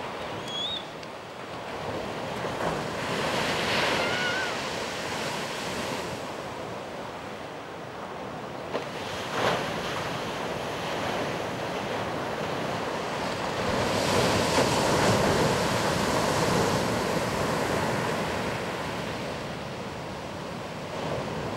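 Ocean waves breaking and washing up a beach, with wind buffeting the microphone. The surf swells and eases, loudest about two-thirds of the way through.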